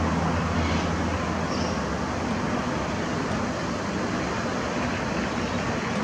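Steady outdoor background noise picked up by the camera's microphone, with a low hum that fades out about a second and a half in.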